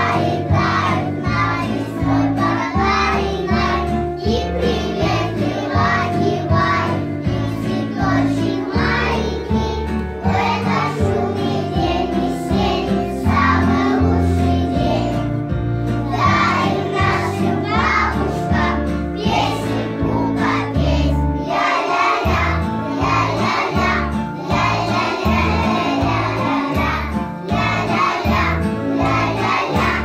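A group of young children singing together over a recorded backing track with a steady beat.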